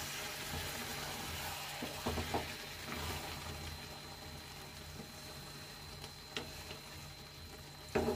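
Potato and aubergine curry sizzling gently in a frying pan as a spatula stirs it, with a few soft knocks and scrapes of the spatula against the pan, about two seconds in and again near the end.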